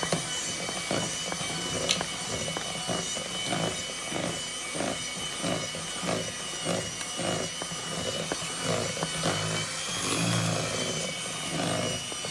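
Electric hand mixer running, its twin beaters churning thick cake batter of butter, sugar, eggs and flour in a plastic bowl. A steady motor whine sits over a rhythmic churning as the beaters are worked around the bowl.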